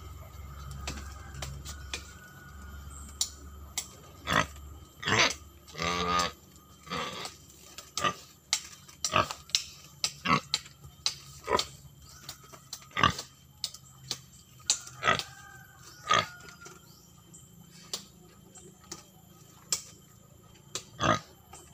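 Domestic pig grunting in short, repeated bursts, about one or two a second, with one longer, more drawn-out grunt about six seconds in.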